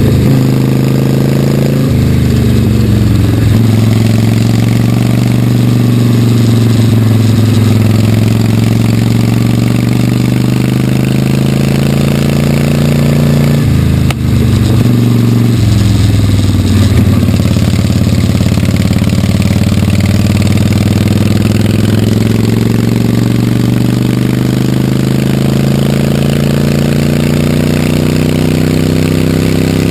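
1946 Harley-Davidson WL's 45 cubic-inch flathead V-twin running hard under load, heard from on board the bike. The engine note climbs steadily, breaking off and dropping briefly about two seconds in and again about halfway before climbing again.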